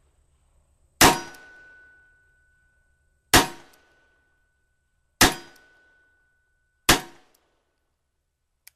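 Four revolver shots, about two seconds apart, from a Model 1892 French Ordnance revolver firing 8mm Lebel revolver cartridges, each a sharp crack with a short decaying tail. Two faint clicks near the end.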